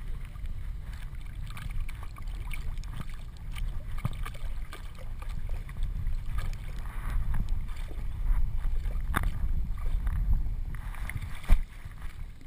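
Water splashing and sloshing around a dog moving through river water, heard through a GoPro strapped to its back, with a steady low rumble of the camera rubbing and jostling against the dog's body. A sharp knock comes near the end.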